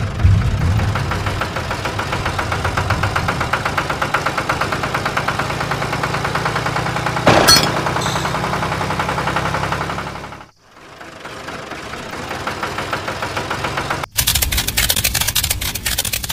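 Tractor diesel engine idling with a steady rhythmic chug, with one sharp click about seven seconds in. The engine sound fades out briefly past the ten-second mark, builds again, and from about fourteen seconds turns to a harder, faster rattle.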